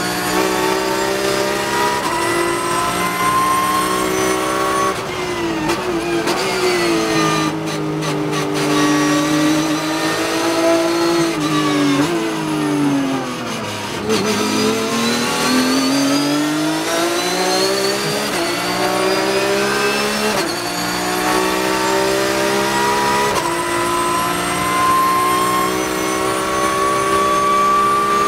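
Porsche 991.2 GT3 Cup's naturally aspirated flat-six heard from inside the cockpit: running near full revs, then falling in pitch under braking with blipped downshifts to about halfway through, then pulling hard again and climbing up through a series of upshifts, each one a rising sweep that drops back at the shift.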